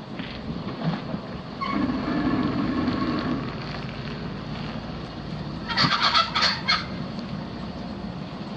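Honking: one longer honk about two seconds in, then a quick run of about five short honks a little past the middle, over a steady low rumble and wind noise.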